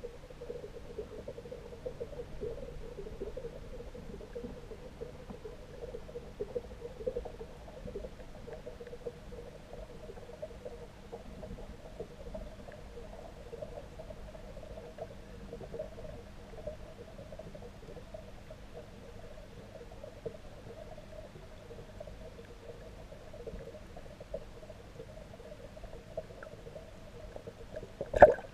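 Steady muffled hum of the water as picked up by a submerged camera, with one sharp knock near the end.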